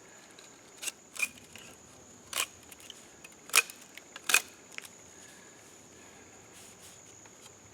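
About five short, sharp wooden clicks and taps as pieces of yucca spindle and trumpet vine are handled and knocked together, over a faint steady high-pitched insect drone.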